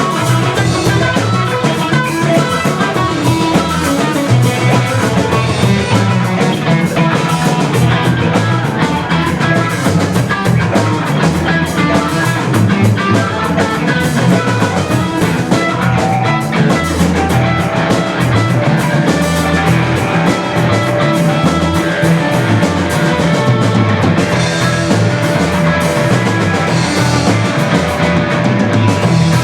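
Rock music played by a band, with guitar and drums and no singing.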